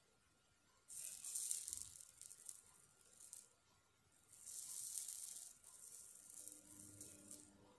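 Soldering iron sizzling faintly on flux as it tins the terminals of cordless-drill battery cells, in two spells of hissing and crackling, the first starting about a second in, the second about halfway through.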